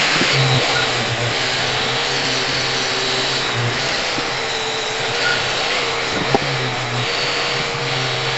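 Electric angle grinder running steadily while it is worked over a steel differential cover, with one sharp click a little over six seconds in.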